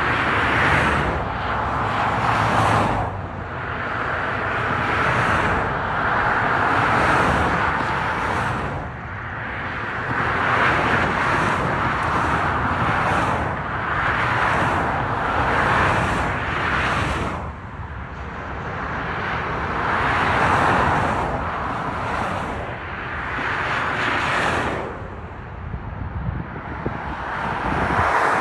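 Highway traffic passing beneath an overpass at speed: the tyre and engine noise of car after car swells and fades as each one goes by, about every two to three seconds.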